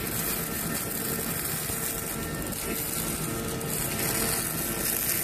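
MIG/MAG welding arc from a Fronius MTW500i torch on thick steel plate at about 300 A: a steady, unbroken hiss.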